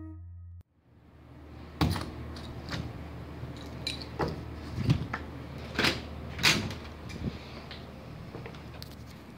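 The last guitar note fades out at the start, then after a brief gap come faint room hiss and a run of irregular knocks and clicks: handling noise and movement of someone walking through a room with a handheld camera, the loudest knock about two seconds in and two more near six and six and a half seconds.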